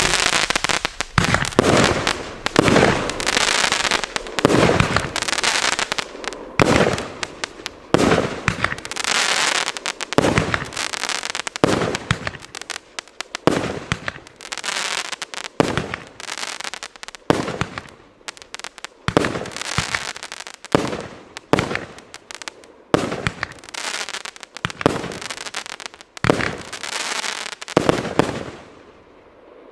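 Evolution Fireworks 'Shape Shifter' firework going off in a long rapid series of loud bangs and crackling bursts, one after another with hardly a pause, fading out near the end.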